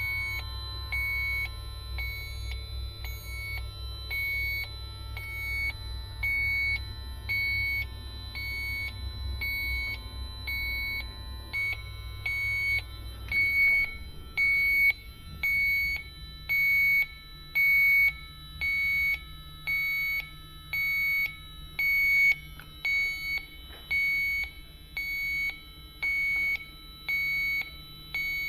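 Electronic refrigerant leak detector (sniffer) beeping steadily, a short high beep about once a second, with no speed-up: it is running a search for a freon leak around the braze joints without picking up refrigerant. A low hum underneath drops away about halfway through.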